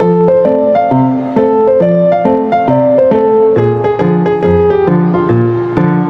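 Solo piano playing a gentle, evenly paced melody over an alternating low bass line.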